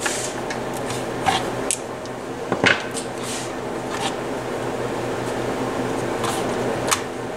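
Metal control knobs being pulled off a stereo receiver and set down on a wooden workbench: a few scattered light clicks and knocks, the loudest a little under three seconds in, over a steady background hum.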